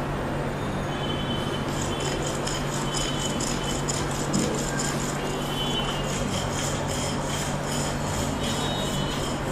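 Rhythmic rubbing or scraping massage strokes, about four a second, starting about two seconds in, over a steady low hum.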